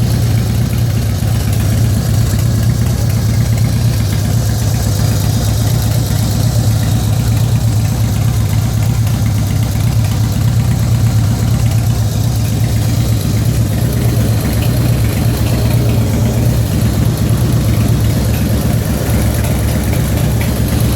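2004 Harley-Davidson FXST Softail's Twin Cam 88B V-twin idling steadily, with the ticking noise that began after a recent fluid change. The owner does not know what causes the tick.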